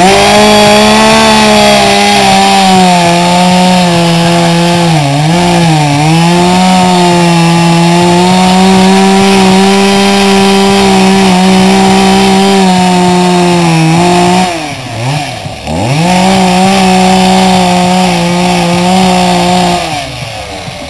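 Chainsaw running at high revs while carving into an upright log, its pitch sagging twice about five seconds in as the chain bites into the wood. It drops back about fourteen seconds in, revs up again about a second later and keeps cutting, then drops off near the end.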